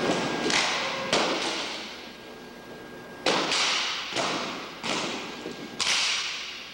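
Sharp cracks of drill rifles being slapped and struck in a silent precision drill routine, each hit ringing on in the echo of a large gymnasium. A string of single and paired hits comes in the first second or so, then a pause of about two seconds, then several more hits.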